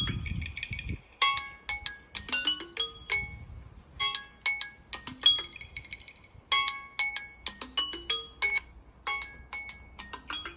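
Electronic alarm tone from a phone or tablet: a short phrase of bright chime-like notes ending in a brief trill, repeating about every two and a half seconds. A low rumble sounds under it during the first second.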